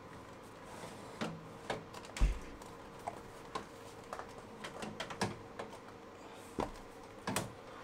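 Battery pack of an APC Smart-UPS 3000VA being slid out of the unit by hand: scattered light clicks and knocks of the metal tray, with a dull thump about two seconds in and a few sharper knocks near the end.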